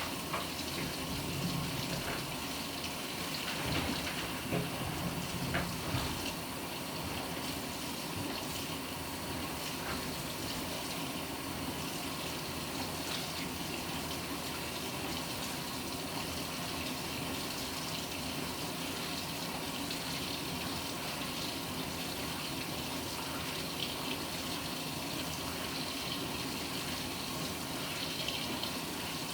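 Steady rush of water in the tub of a Panasonic NA-FA100H9 top-loading washing machine early in its automatic cycle, a little louder in the first few seconds.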